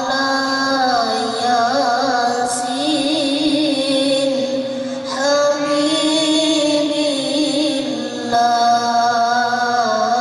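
A boy qari reciting the Quran in the melodic tilawah style, amplified through a microphone and loudspeaker. He sings two long held phrases with wavering ornaments, taking a short breath between them about five seconds in.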